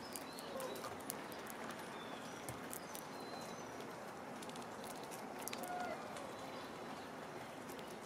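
White-breasted nuthatch at a tray feeder of nuts and seed, making scattered small taps and clicks as it lands and pecks. A few short, faint bird chirps come through now and then.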